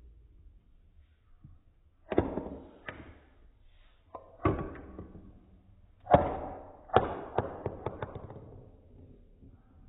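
A marble dropping and bouncing on a hard surface: separate sharp knocks, each with a fading ring, then about seven seconds in a run of quickening, smaller knocks as the bounces die down.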